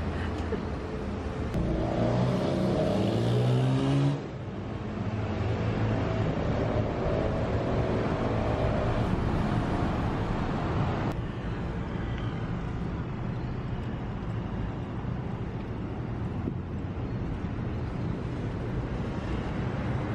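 City street traffic. A motor vehicle accelerates close by, its engine pitch rising from about two to four seconds in. After that there is steady road traffic noise from passing cars and scooters, and the sound changes abruptly about four seconds in and again about eleven seconds in.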